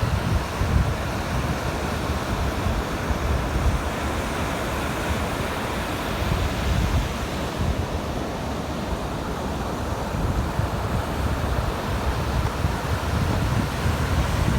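Ocean surf washing steadily on the beach, with wind buffeting the microphone in a low, gusty rumble.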